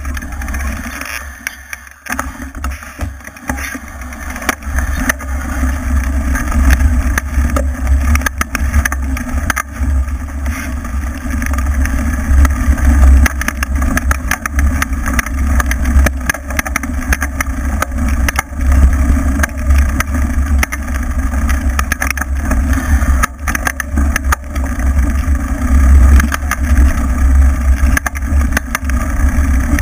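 Wind buffeting and tyre rumble on a bike-mounted camera riding fast over a bumpy dirt trail, with frequent rattles and knocks from the bumps. It grows louder over the first few seconds.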